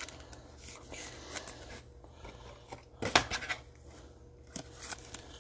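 Trading cards and plastic card holders being handled: light rustles and small clicks, with one sharper, louder click-and-rustle about three seconds in.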